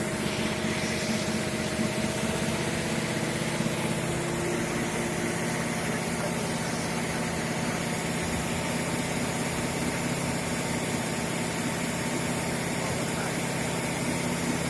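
Fire pump engine running at a steady speed, driving water through a hydroelevator suction setup; an even hum with a hiss over it, no change in speed.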